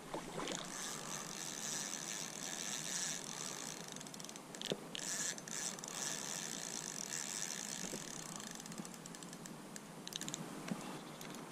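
Fixed-spool fishing reel being wound while playing a hooked barbel: its gears whirring in long spells, with a few sharp clicks.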